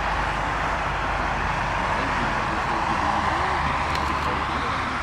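Jet engine noise carrying across an airport: a steady rushing roar that swells a little about three seconds in and eases toward the end.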